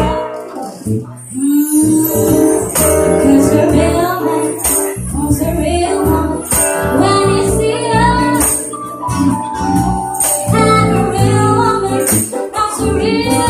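A woman singing into a microphone, backed by acoustic guitar and electric bass in a small live band.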